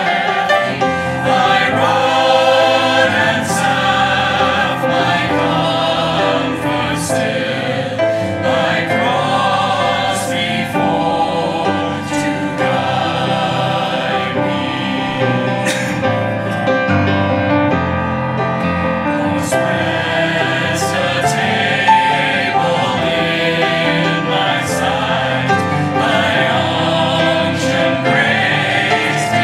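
Mixed church choir of men and women singing a sacred choral piece with piano accompaniment, continuously.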